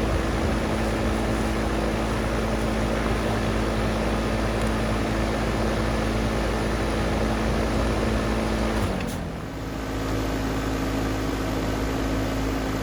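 Outdoor air-conditioning condenser unit running: a steady fan and compressor hum. About nine seconds in, the hum's pitch slides down and the sound dips briefly, then settles into a different steady tone.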